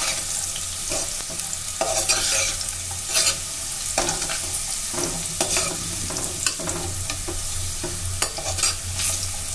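A spoon stirring vegetables and nuts frying in oil in a pressure cooker. A steady sizzle runs under irregular scrapes and knocks against the pot, about once a second.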